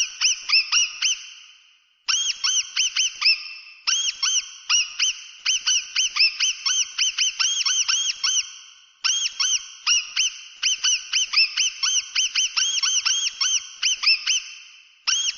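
Mouse squeaking: runs of short, high-pitched squeaks, several a second, broken by brief pauses.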